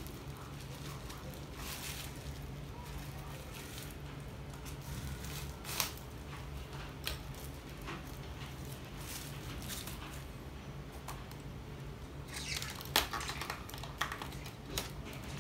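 Handling noise of a model tractor being worked loose from its plastic packaging tray: scattered rustles of plastic wrap and light plastic clicks, with a few sharper clicks about 13 seconds in, over a steady low hum.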